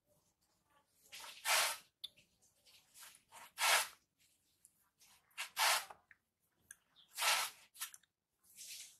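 Loud slurping sips of hot tea from a glass, four short airy slurps about two seconds apart.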